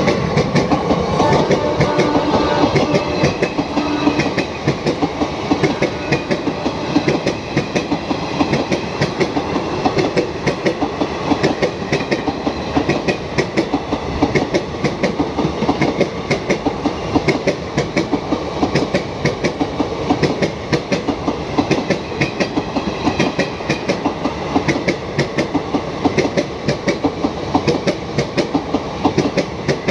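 Train running past at speed on Indian Railways track: a steady rumble with rapid, continuous clickety-clack of wheels over rail joints. A horn trails off at the very start.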